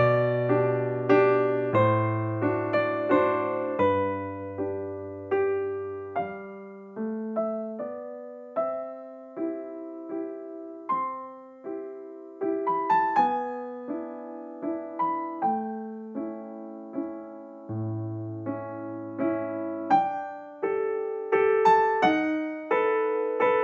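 Background piano music: a gentle melody of single, decaying notes over occasional low bass notes.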